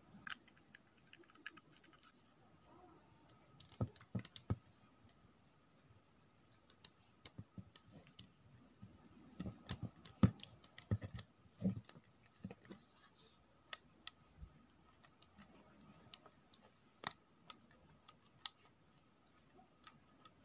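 Silicone spatula stirring a slime mixture in a ceramic bowl: faint, irregular clicks and taps, busiest and loudest about halfway through.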